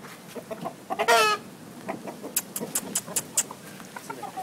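Aseel gamecock giving one short, loud cluck about a second in, followed by a run of sharp clicks about halfway through.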